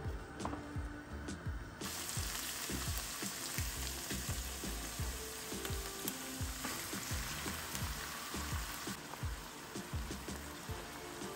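Green peppers and onion sizzling in oil in a frying pan while a wooden spatula stirs them. The sizzle grows louder about two seconds in and eases off near the end.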